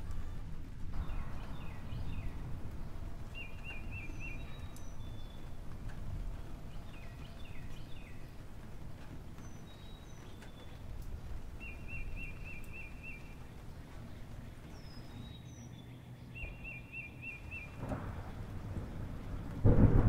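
Background nature track of a low steady rumble of rain and thunder, with birds trilling in short bursts several times and chirping. The rumble swells much louder just before the end.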